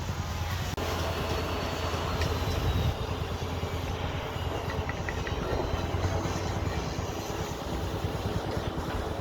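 Construction machinery running steadily with a low engine rumble, with a few faint clicks.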